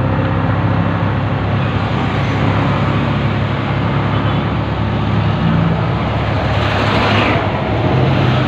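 Engine hum with wind and road noise from a vehicle being ridden along a road. A louder rush of passing traffic swells about seven seconds in.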